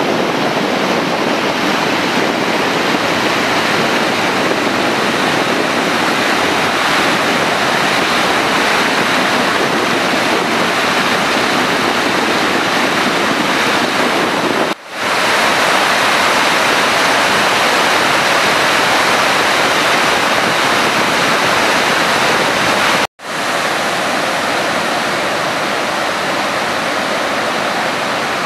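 Water from the full Kandalama reservoir spilling over its concrete spillway, a loud, steady rush of falling and churning water. It breaks off for a moment twice, about fifteen and twenty-three seconds in, then carries straight on.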